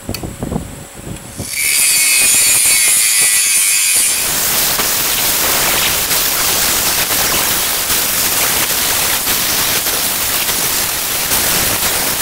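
A few light knocks, then an angle grinder starts about a second and a half in and whines at full speed. From about four seconds in its disc bites into the forged leaf-spring steel blade, a steady harsh grinding.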